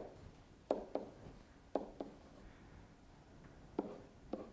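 Stylus clicking against a digital writing surface while handwriting, about six sharp light taps coming in rough pairs over faint room tone.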